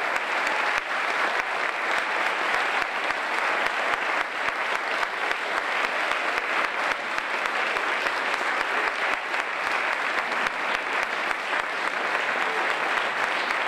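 Audience applauding: many people clapping at once, steady and sustained.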